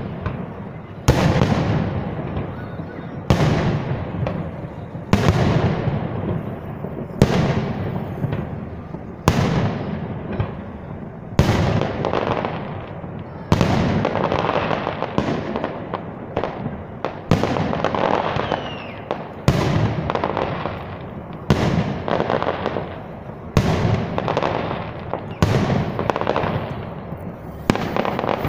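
Fireworks salute: aerial shells bursting one after another about every two seconds. Each burst is a sharp bang that trails off into a long, fading rumble.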